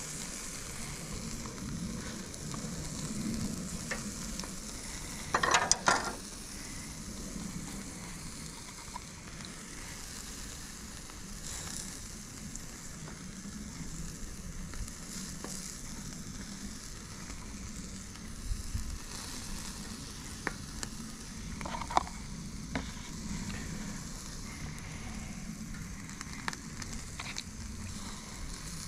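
Softshell crabs sizzling on a charcoal grill, crab juice and butter baste dripping and hissing on the hot coals, with scattered sharp crackles. A louder burst of crackling comes about six seconds in.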